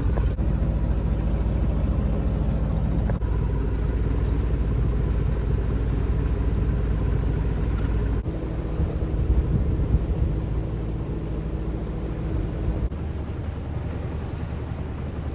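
A sailboat's engine running steadily as the boat motors along, a low drone mixed with water washing past the hull.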